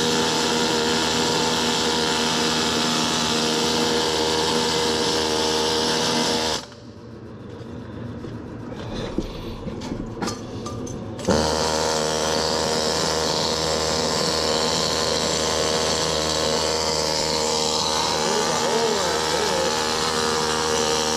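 Stick-welding arc from a 1/4-inch 7018 rod: a steady buzzing crackle over a hum. The arc breaks off about six and a half seconds in and strikes again about five seconds later.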